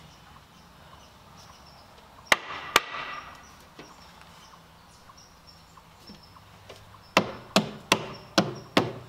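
Hammer striking a 2x4 truss to knock it flush with the top of the beam. There are two sharp blows about two seconds in, then a run of five evenly spaced blows, about two and a half a second, near the end.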